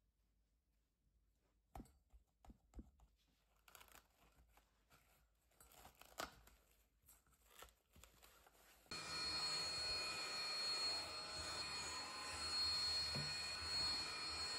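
Faint soft taps and rustles of dough being handled and set into a stainless steel bowl, then, cutting in abruptly about nine seconds in, a cordless stick vacuum cleaner running steadily with a high motor whine over its rush of air.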